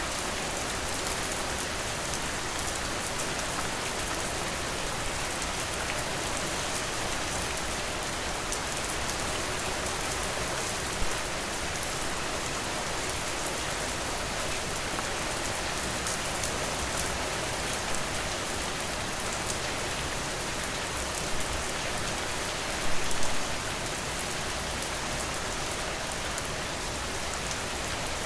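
Steady rain falling on surfaces, an even hiss of drops, with a few sharp louder pops, a short cluster of them about three-quarters of the way through.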